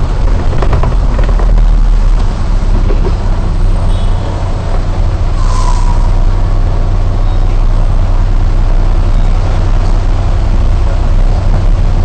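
Non-air-conditioned double-decker bus's diesel engine running with a steady low rumble as it drives along a wet road, heard from the upper deck; a short hiss about halfway through.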